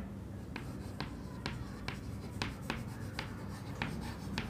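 Chalk writing on a chalkboard: a string of short, sharp chalk taps at an uneven pace, about two a second, each stroke making a faint click.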